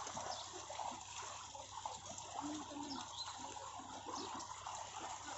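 Splashing and trickling water from a dense mass of catfish thrashing at the surface of a shallow, netted pond, with irregular small splashes throughout.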